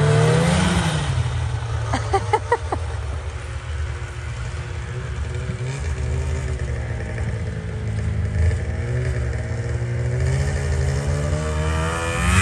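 Snowmobile engines running: a small Polaris snowmobile rises in pitch as it pulls away, and an engine keeps running steadily close by. The pitch climbs again near the end as a sled revs. A brief cluster of sharp short sounds comes about two seconds in.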